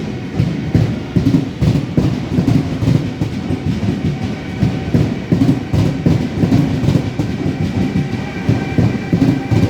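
Railjet train running on the track: a loud steady rumble with irregular wheel knocks. A faint high whine joins it from about halfway through.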